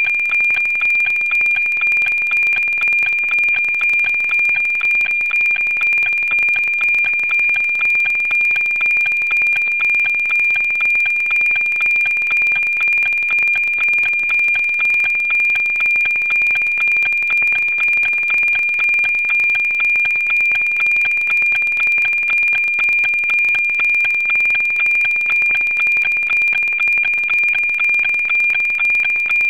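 NOAA-19 weather satellite APT image signal received on 137.1 MHz and FM-demodulated: a steady high tone that ticks evenly about twice a second, one tick per scan line of the image being decoded.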